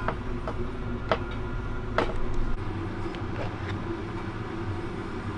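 Heavy vehicle engine running steadily, with a few sharp clanks and knocks over it.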